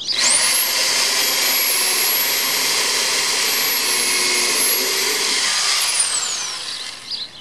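Electric drill spinning up fast, drilling a screw hole through the new cherry-wood gunwale into the canoe's Kevlar hull with a steady high whine, then winding down about six seconds in.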